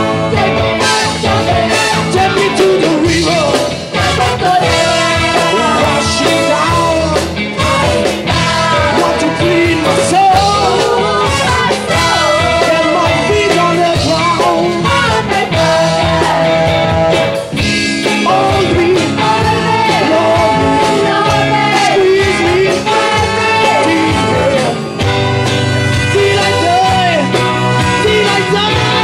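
Live soul band playing loudly, with a brass section of trumpets and saxophone over bass and drums, and singing.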